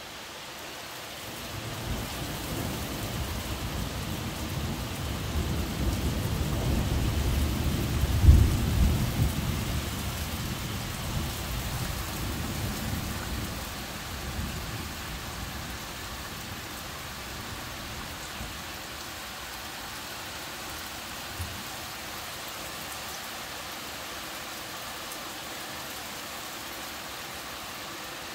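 A long roll of thunder over steady rain: the rumble builds for several seconds to a sharp crack about eight seconds in, then rolls away over the next several seconds, leaving the even hiss of rain falling on foliage.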